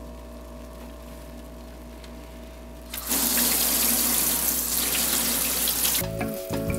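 Kitchen tap turned on about three seconds in, its stream of water running into a stainless steel sink and over plastic model-kit runners, rinsing the soapy water off them.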